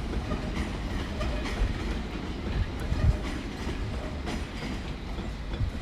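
A train running on the tracks: a steady low rumble with a few sharp knocks spread through it.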